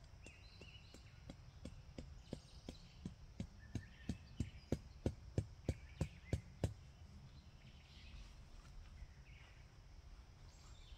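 A mallet hammering a tent stake into the ground: a quick, regular run of about twenty strikes, about three a second, getting louder through the run and stopping about two-thirds of the way in.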